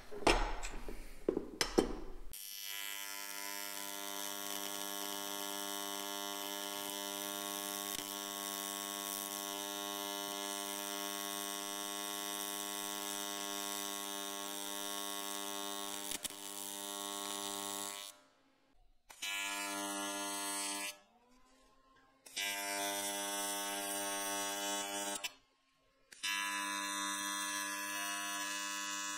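AC TIG welding arc buzzing on aluminum tube, a steady electric hum: one long bead of about fifteen seconds, then three shorter welds of two to three seconds each with short gaps between. It opens with a few sharp knocks.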